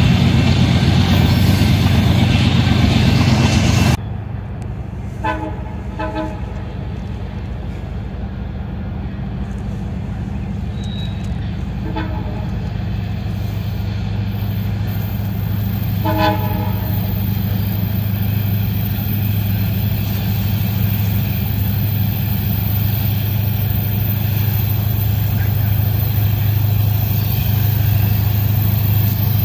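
A freight train's hopper cars rolling past close by, cut off abruptly after about four seconds. Then comes the steady drone of an approaching diesel locomotive, slowly growing louder, with its horn sounding short blasts in the distance: two quick ones, a single one several seconds later, and one more a few seconds after that.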